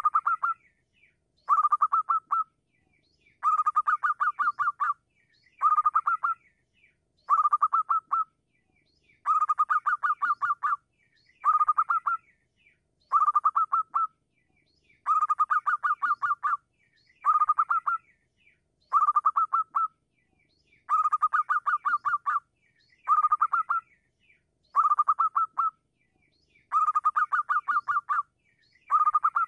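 Zebra dove (perkutut) singing: a rapid, rattling phrase of staccato cooing notes about a second and a half long, repeated regularly about every two seconds.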